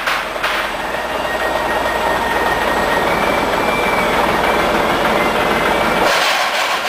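Stainless-steel twin-shaft mixer running: a steady mechanical noise with a faint thin whine. Its deeper part drops out about six seconds in.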